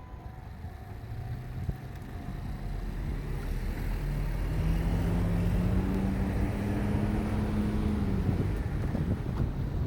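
Diesel railcar engine, growing louder and climbing steadily in pitch as the train approaches. A level-crossing bell rings for the first three seconds or so.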